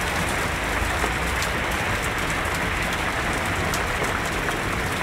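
Heavy rain pouring down on a flooded street, a steady, unbroken hiss of rain and water with a low rumble beneath it.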